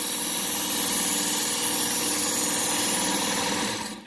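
Work Sharp Ken Onion Edition electric belt sharpener running steadily, its coarse abrasive belt grinding the edge of a steel knife blade drawn through the angle guide. The motor is switched off and winds down near the end.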